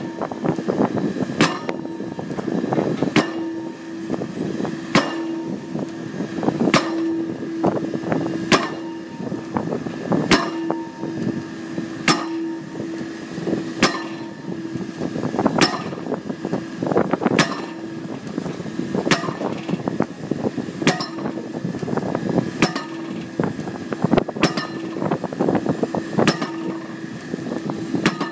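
Pile-driving hammer striking a pile in a steady beat, one sharp clanging blow about every second and three-quarters, over the steady drone of running machinery.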